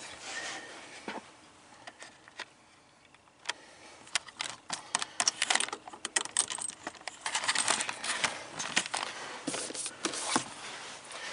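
Plastic shifter bezel trim on the centre console being handled and snapped back into place: light, quick clicking and rattling that starts after a short quiet spell and grows denser toward the end.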